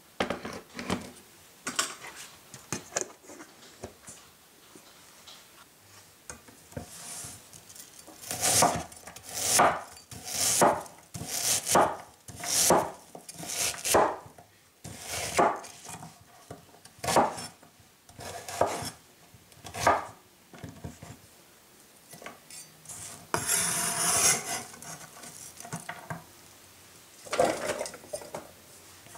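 Chef's knife slicing a white onion on a bamboo cutting board: a run of about fifteen crisp cuts, each stroke knocking down onto the wood, roughly one a second or a little faster. Near the end comes a longer scrape across the board.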